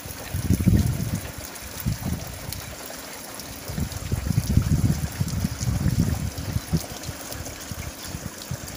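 Water running and trickling at a concrete irrigation tank fed by a white lay-flat pipe, over an irregular low rumble that surges and fades.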